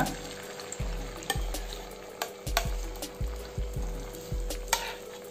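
Egg, potato and onion batter sizzling in hot oil in a nonstick pan, with a steel spoon scraping and tapping the pan a few times as the batter is spread out.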